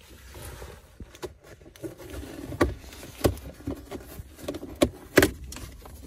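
Plastic trim and a rubbery gear gaiter being handled as the gaiter and its surround are lifted up the gear lever of a Citroen C1: low handling noise with several sharp clicks and knocks, the loudest about five seconds in.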